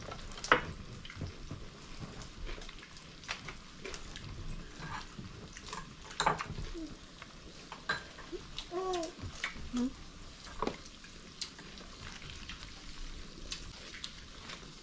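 Meat sizzling in an electric tabletop grill pot, with chopsticks and bowls clicking now and then. A few short pitched voice sounds come around the middle.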